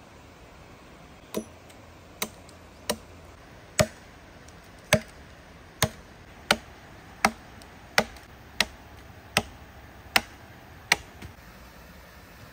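Axe chopping into a teak stump: a steady run of about a dozen sharp blows, a little more than one a second, splitting off wood between chainsaw cuts to rough out the carving.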